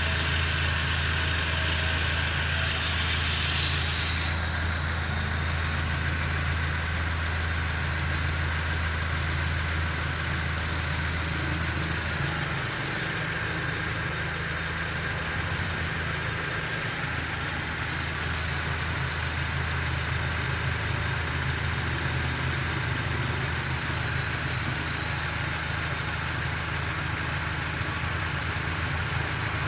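Car engine idling with the AC on, under a steady high hiss that grows stronger about four seconds in: R134a refrigerant flowing from a can through the manifold gauge set into the AC system's low-pressure side.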